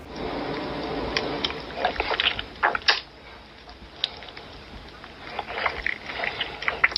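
Wet mouth sounds of licking and slurping, with quick smacking clicks, in a muffled, low-quality recording, busiest in the first three seconds and again near the end.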